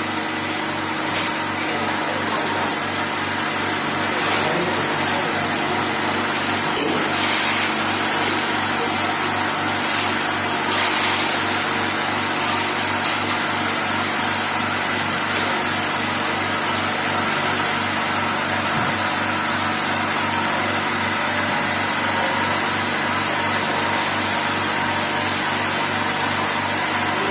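Crystal ice machine running on a trial run: a steady mechanical hum with several constant tones from its compressor and motors, and a few faint clicks in the first dozen seconds.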